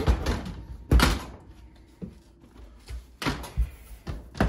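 Electric oven door knocking and clunking as it is worked onto its hinges and lowered closed: a series of sharp knocks, the loudest about a second in.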